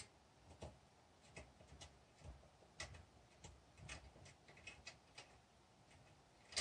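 Faint, irregular metallic ticks, roughly two a second, as a starter (taper) M10 tap is unscrewed by hand from the freshly cut thread in an old spark plug body held in a vise.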